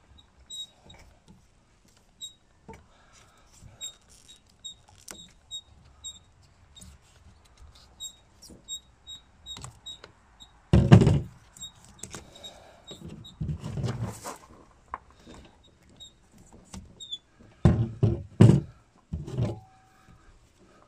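Pliers clicking and snipping at the rubber mount of a driveshaft carrier bearing: a run of small metallic clicks, then several heavy knocks in the second half.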